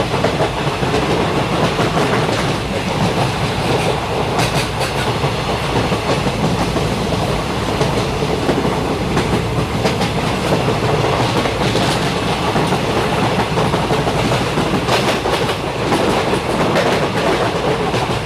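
A train running along the rails: a steady rumble of wheels and cars, with scattered sharp clicks as the wheels pass over rail joints.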